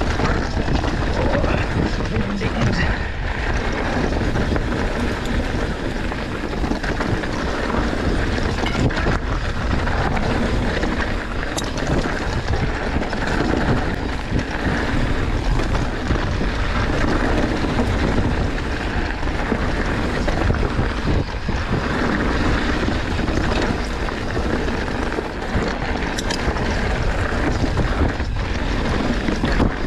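Wind rushing over the microphone and tyres rolling over a dirt trail as an enduro mountain bike is ridden, with rattles from the bike and a few sharp clicks.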